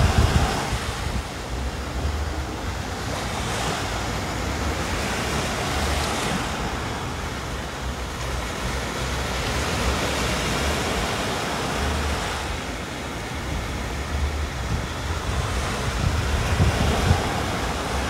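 Small waves breaking and washing up a sandy beach, swelling and easing every few seconds. Wind buffets the microphone, most near the start and the end.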